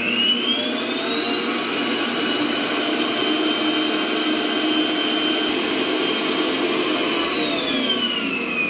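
Electric stand mixer motor running at high speed with a steady high whine, its wire whisk beating a liquid strawberry ice cream mixture; the pitch starts to fall near the end as it slows down.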